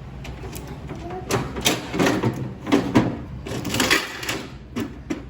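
A run of sharp clicks, clatters and crinkles, such as objects being handled and rustled, packed between about one and four and a half seconds in, over a steady low hum.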